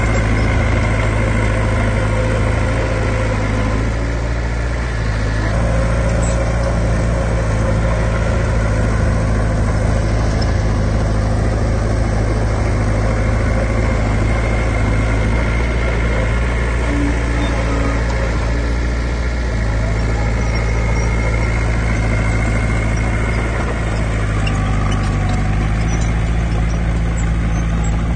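Heavy diesel engine of earthmoving equipment running steadily, its note shifting slightly about five seconds in and again near the end.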